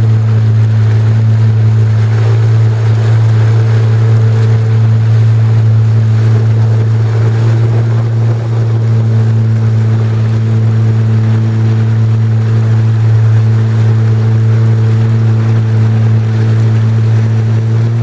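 Jet ski engine running steadily at low speed, a constant low drone with a steady hiss over it.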